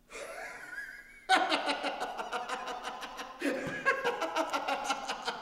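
A man laughing heartily in rapid, repeated bursts, breaking out about a second in, after a faint, high wavering sound.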